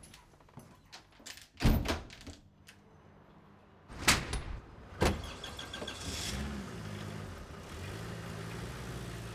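A door thuds shut about a second and a half in, then van doors are slammed twice around four and five seconds in, followed by a small van's engine running steadily as it pulls away.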